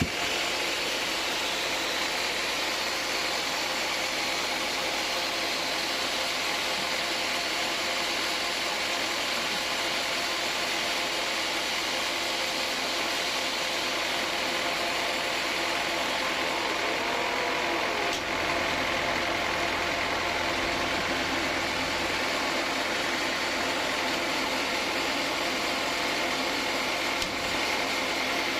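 Band sawmill running steadily: a continuous machine hum with several steady tones over a broad whir.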